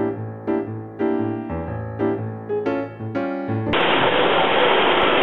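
Piano music, cut off suddenly about three-quarters of the way in by the loud, steady noise of a Lynx 220LMS CNC lathe machining stainless steel with coolant flooding the work.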